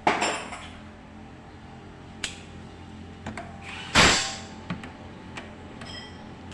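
Two loud sharp knocks, one at the start and one about four seconds in, with a few lighter clicks between and after, over a steady low hum.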